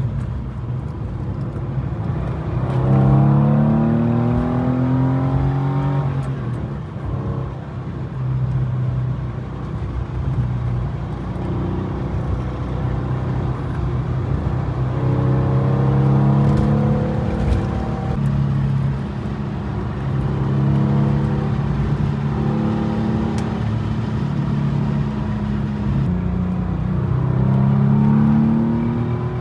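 BMW Z4 sDrive35is twin-turbo straight-six under way, its note climbing three times under acceleration, with steadier running between.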